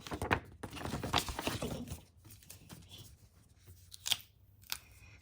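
Paper and plastic album packaging crinkling and rustling as it is handled, busiest in the first two seconds, then a couple of sharp taps near the end.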